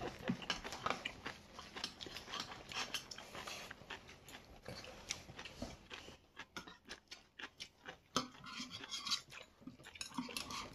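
Table eating sounds: metal chopsticks and spoons clicking and scraping against stainless steel bowls, mixed with children chewing noodles. The clicks are short and scattered, with a quick run of them about six to seven seconds in.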